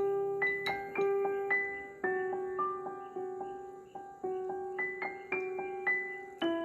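Background music: a slow, gentle piano melody, single notes struck about twice a second and left to fade over a held low note.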